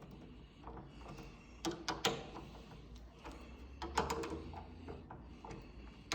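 A few light clicks and knocks of a screwdriver and a metal door latch plate being screwed into the edge of a door, with the sharpest knocks at about two and four seconds in.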